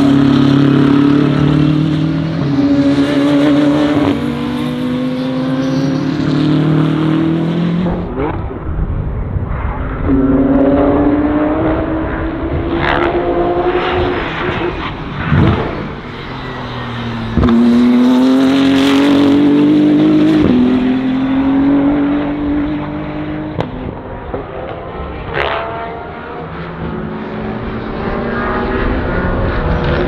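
Twin-turbo BMW GT3 race car engine at full throttle on track. Its note climbs through each gear and drops at each upshift, over several passes, with a few short sharp cracks.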